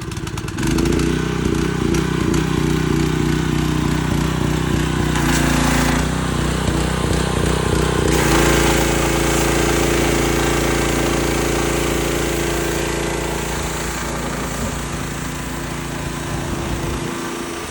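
Ford 460 big-block V8 running on an engine dyno, a loud steady engine note; its pitch shifts between about five and eight seconds in, then holds steady.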